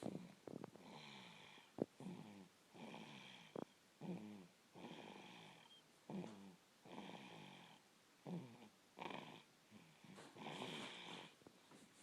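A nine-month-old baby snoring softly, a rasping, pitched snore on each breath, roughly once a second. Two brief sharp clicks come in the first few seconds.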